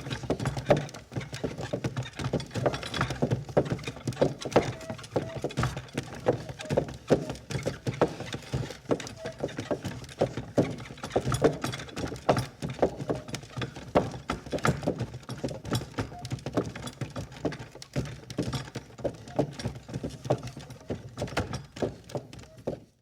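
Ox cart moving along: a continuous, irregular clatter of knocks and clip-clop from the animal's hooves and the wooden cart.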